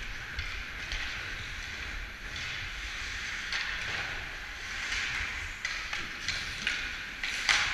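Ice skate blades scraping and carving on ice in repeated strides, a hissing scrape that swells and fades, with short sharp knocks and a louder sharp scrape near the end.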